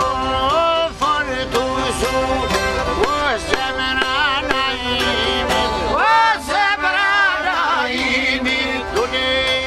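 Live Albanian folk ensemble playing an ornamented, pitch-bending tune on accordion, çifteli, mandolin and violin over a steady drum beat.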